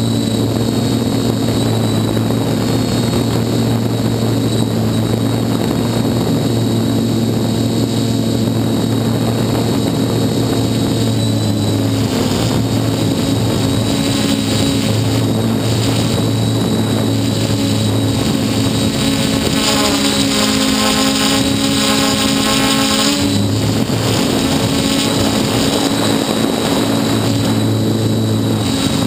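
Hexacopter drone's six electric motors and propellers droning steadily in flight. About twenty seconds in, a higher multi-toned whine joins for roughly four seconds as the motor speeds change, then drops away.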